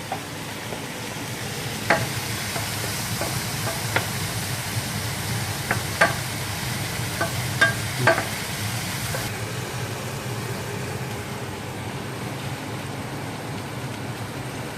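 Beef burger patties sizzling steadily in a frying pan, with a few sharp taps against the pan in the first half. The hiss eases slightly about nine seconds in.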